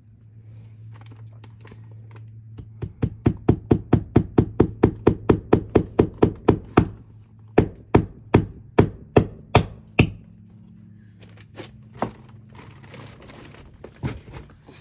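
A hammer striking repeatedly in a quick even rhythm of about five blows a second, then after a short pause a slower run of about seven heavier blows, over a steady low hum.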